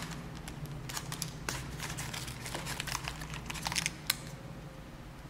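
Thin plastic accessory bags crinkling and rustling as a small bag of spare earbud tips and a bundled cable are handled and lifted out of a cardboard phone box, with irregular light clicks and taps.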